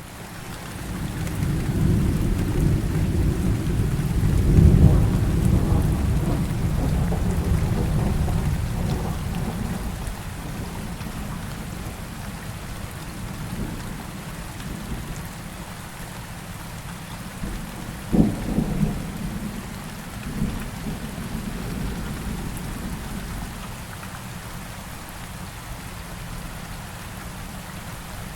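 Steady rain with a long roll of thunder that swells up, peaks about four seconds in and fades away over the next several seconds. About two-thirds of the way through, a sharper clap of thunder with a couple of smaller rumbles after it.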